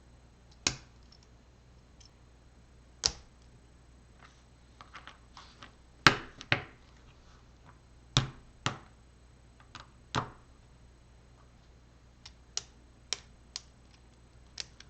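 Hard plastic LEGO Technic parts clicking and knocking as they are handled and fitted together: scattered sharp clicks, the loudest around the middle, then a run of lighter ticks near the end.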